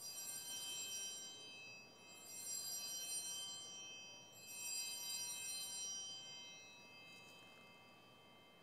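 Altar bells rung three times, about two seconds apart, each ring bright and fading slowly. They mark the elevation of the chalice at the consecration.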